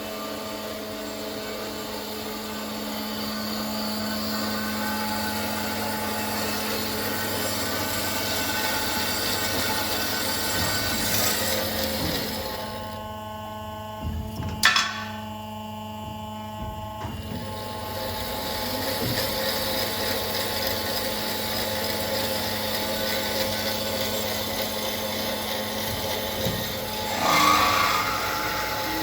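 Metallkraft BMBS 290x290 CNC-F automatic metal-cutting band saw running, a steady mechanical noise over a constant motor hum. About halfway through the noise drops to a quieter hum for a few seconds, with a single sharp knock, then the saw's noise picks up again and swells louder near the end.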